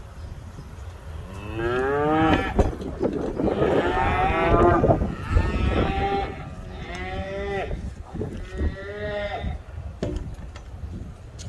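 Cattle mooing: about five calls in a row, the first rising in pitch and the loudest ones near the middle, over a steady low rumble.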